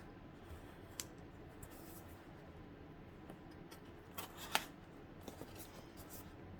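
A small folding pocketknife slicing the tape and cardboard of a shipping box: faint scraping with a few sharp ticks, the loudest about four and a half seconds in and a quick cluster near the end.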